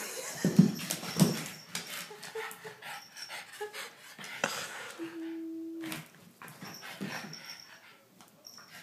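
French bulldog vocalising and breathing hard while play-wrestling with a Siamese cat, with irregular grunt-like noises and scuffling on the rug; the two loudest come about half a second and a second in. A steady held tone lasts about a second around the middle.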